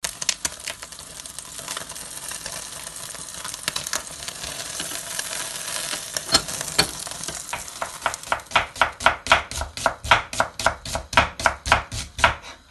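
Gas burner flame hissing steadily as a whole raw chicken is singed over it, then, from about eight seconds in, a chef's knife slicing onion on a cutting board in a quick, even run of strokes.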